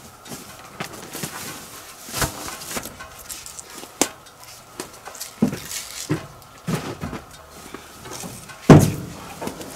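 Irregular wooden knocks and clunks of birch poles being handled and stacked, with one heavy thump near the end.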